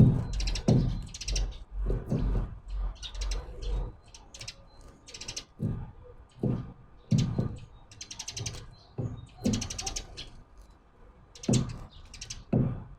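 Birds at a wooden feeder: irregular knocks and taps of pecking and landing, mixed with short, scratchy, rattling bursts, one to three a second.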